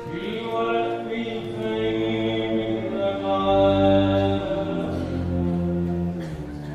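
Arabic song performed live: a male singer holds long notes, stepping from pitch to pitch, over an accompanying instrumental ensemble.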